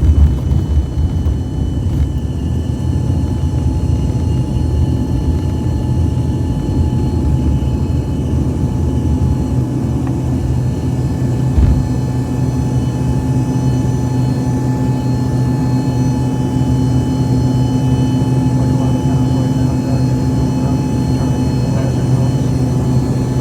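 Jet engines of an American Eagle regional jet running during takeoff: a steady low rumble with a steady whine over it.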